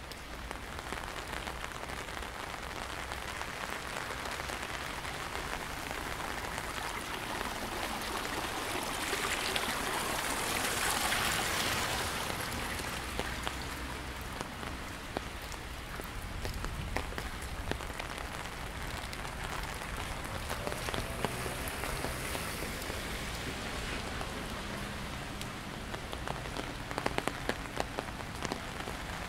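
Water of a rain-swollen stream running, swelling louder for a few seconds about ten seconds in, with scattered sharp drip ticks over it.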